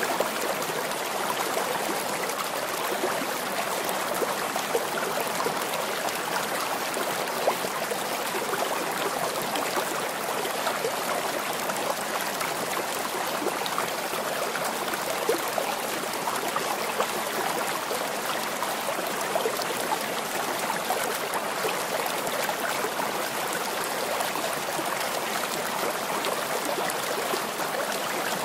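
Steady sound of running water, like a flowing stream, with fine trickling and splashing detail that does not change.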